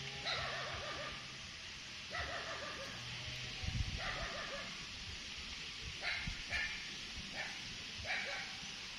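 A series of short animal yelps: three brief clusters of calls in the first half, then shorter, higher squeaks spaced about half a second to a second apart.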